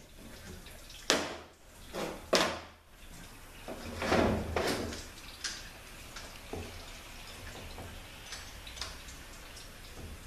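Metal transmission parts and tools clanking as they are handled on the bench: two sharp knocks in the first few seconds, a longer scraping clatter about four seconds in, then a few lighter clicks.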